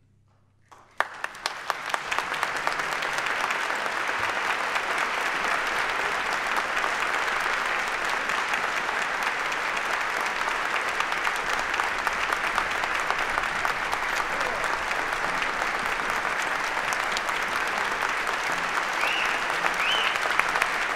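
Audience applause: a few separate claps about a second in, after the orchestra's final chord has died away, quickly building into steady, dense clapping.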